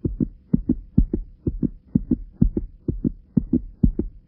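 Heartbeat sound effect: evenly paired low thumps, about two heartbeats a second, over a faint steady hum.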